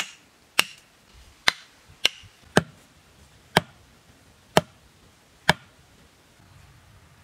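Hammer blows on the top of a wooden stake, driving it into the ground: eight sharp, ringing knocks at an uneven pace of roughly one a second, stopping about five and a half seconds in.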